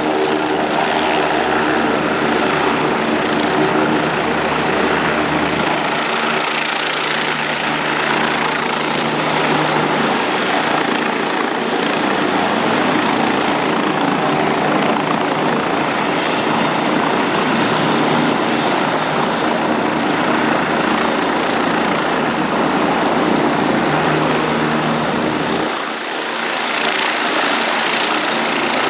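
Agusta Caweel CW-95 helicopter sound effect: a continuous running sound of turbine and rotor noise under a thin high whine. The sound dips briefly near the end and picks up again.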